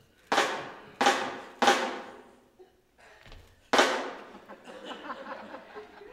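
Accented band hits: sharp drum-and-cymbal crashes, three in quick succession about two-thirds of a second apart, then a fourth a couple of seconds later, each ringing out.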